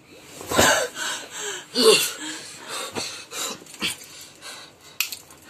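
Heavy, irregular breathing and gasps from a person, in a run of noisy breaths. The loudest come about half a second and two seconds in, with a brief voiced moan around the second one.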